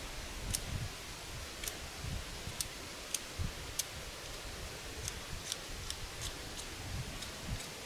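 Wood campfire crackling: irregular sharp pops over a steady low hiss, with a few soft low thumps.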